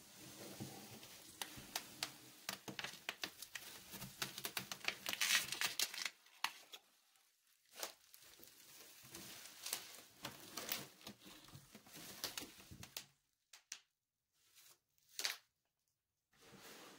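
Clear plastic packaging crinkling and rustling as it is handled during the unboxing of a toilet bowl. The crackling comes in two long stretches, with a short pause between them, and there is a single sharp crackle near the end.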